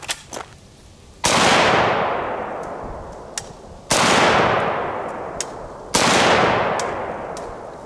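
Three shots from an AK-47 rifle firing 7.62×39 rounds, the first about a second in, then two and a half and two seconds apart. Each shot is followed by a long echo that fades over about two seconds.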